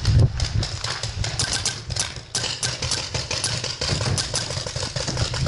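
Paintball markers firing rapidly: a dense, irregular run of sharp pops, several a second.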